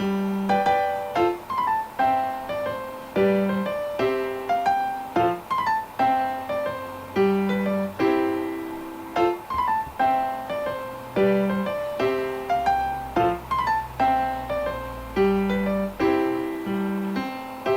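Background piano music: a repeating phrase of single notes and chords, each struck and fading away.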